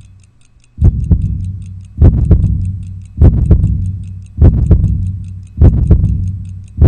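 Fast, light clock ticking under a heavy, low double thump that repeats about every 1.2 seconds like a slow heartbeat, starting a little under a second in: a dramatic sound-effect track.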